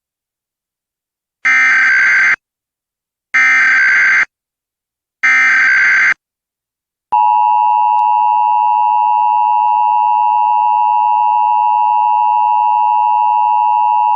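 Emergency Alert System tones. Three short bursts of the screeching SAME digital header, each about a second long, carry the National Periodic Test code. About seven seconds in, the steady two-tone EAS attention signal begins.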